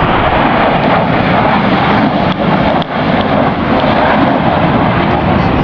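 Loud, steady rushing jet noise from four military jets flying over in formation.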